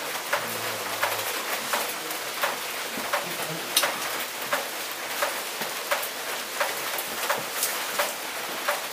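Footsteps of a hiker walking at a steady pace, about three steps every two seconds, each step a sharp tap, over a steady hiss.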